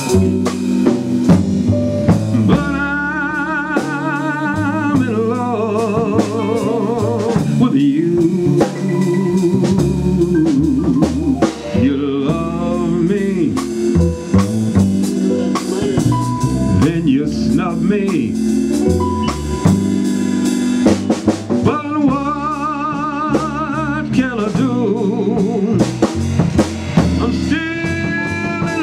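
A small band playing a slow blues ballad: drum kit with rimshots under bass and chords, and a sustained lead melody with wide vibrato that comes in phrases every few seconds.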